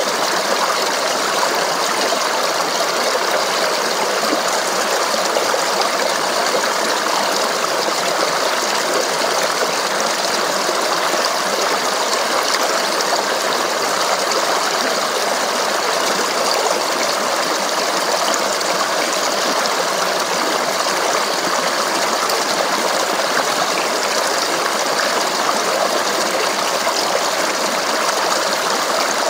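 A flowing stream babbling steadily over rocks, an even, unbroken water sound with no changes.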